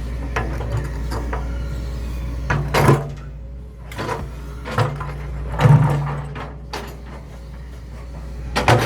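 Excavator's diesel engine running steadily, with several loud clunks of the bucket knocking against rocks: about three seconds in, twice around five to six seconds, and again near the end.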